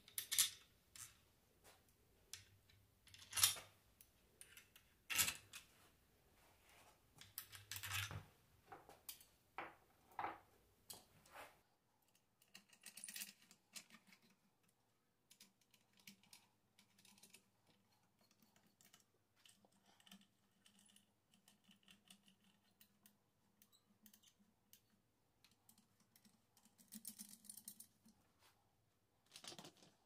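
Sparse clicks and light metallic taps of small parts and a screwdriver being worked on the rear of a Bosch 120 A alternator during reassembly. A handful of sharper clicks come in the first dozen seconds, then only faint ticks.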